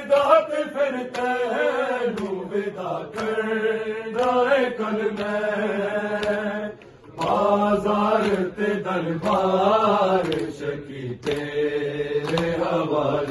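Men's voices chanting a Punjabi noha, a Muharram mourning lament, in long drawn-out melodic lines with a short break about halfway through.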